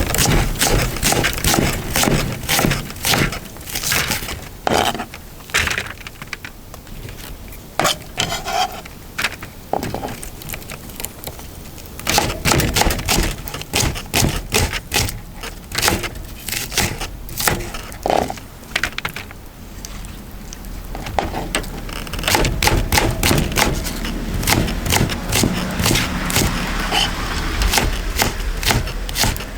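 Wood fire under the cauldron crackling and snapping in dense, irregular cracks, with scattered knocks and scrapes of wood. A low steady rumble comes in about two-thirds of the way through.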